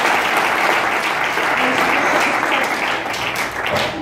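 Audience applause: many people clapping in a dense, steady patter that dies away right at the end.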